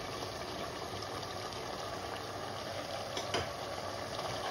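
Pot of keema and potato curry simmering with a steady bubbling hiss as green peas are tipped in from a cup, with a single light click about three and a half seconds in.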